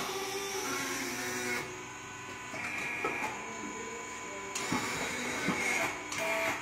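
Truck tyre-changing machine running in spells, its motor noise starting and stopping over a steady electric hum.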